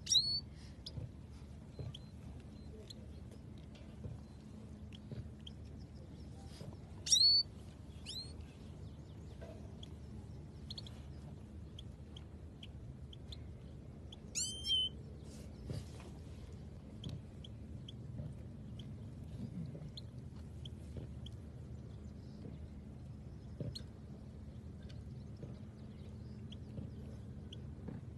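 Caged goldfinches (saira) calling: scattered short chirps and a few louder downswept tweets, the strongest about seven seconds in and again around fourteen seconds in, over a low steady background hum.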